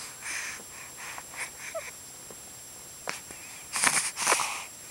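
Young baby hiccuping and breathing: brief sudden hiccups between short breathy sounds, the loudest a couple of breathy bursts about four seconds in.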